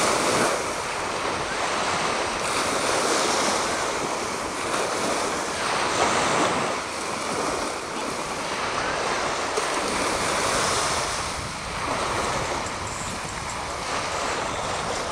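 Small bay waves washing and breaking in shallow water, swelling and easing every few seconds, with wind on the microphone.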